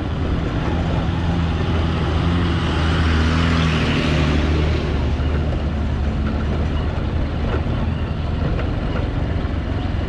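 A vehicle driving along an unpaved road: a steady low engine drone with tyre and wind noise, swelling louder for a few seconds around the middle.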